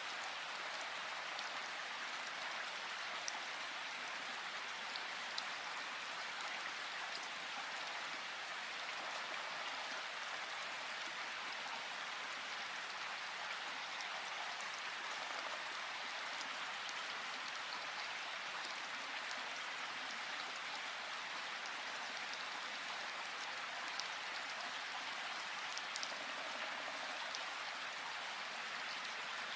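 River water rushing steadily, an even continuous hiss, with a few faint ticks of splashing here and there.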